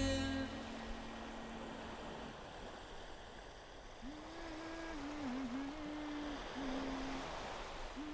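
A voice humming a slow, wavering tune in short phrases from about four seconds in, over a steady wash of surf. A last held note of music fades out in the first two seconds.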